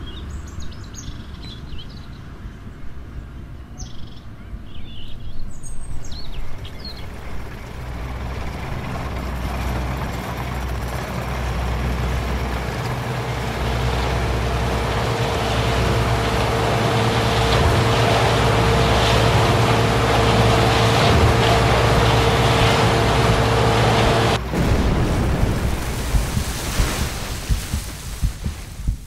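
Birds chirping over a low rumble, which swells into a loud, steady drone with a held hum. The drone cuts off suddenly about 24 seconds in, and uneven crackling noise follows.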